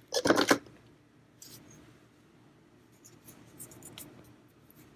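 Handling noises: a quick rattling cluster of clicks about a quarter of a second in, then a few faint scattered clicks.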